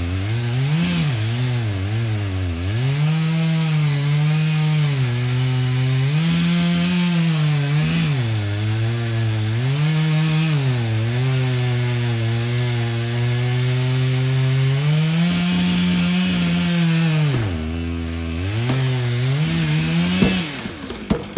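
Two-stroke chainsaw cutting wood, its engine speed rising and sagging again and again as it bites into the cut and frees up. It drops toward idle near the end, revs once more, and a sharp knock follows.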